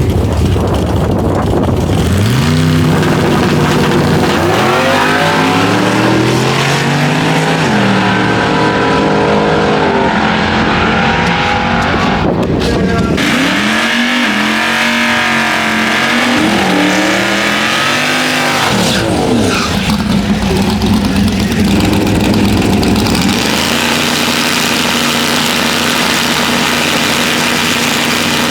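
Loud race car engines accelerating hard, their pitch repeatedly climbing and dropping as they rev up and shift.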